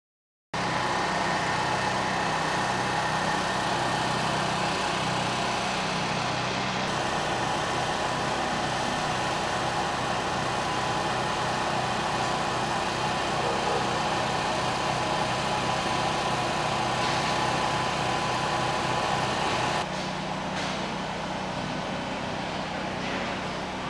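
An engine idling steadily, with a constant low hum and a few held higher tones. It drops a little in level about twenty seconds in.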